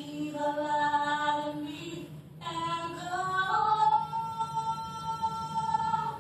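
A woman singing a solo into a microphone in church, holding long notes: one sustained note, a brief break about two and a half seconds in, then a climb up to a higher note that is held.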